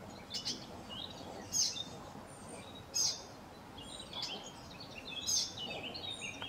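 Blackcaps calling: four sharp, short calls spaced one to two seconds apart, with softer chirps in between, over steady background noise.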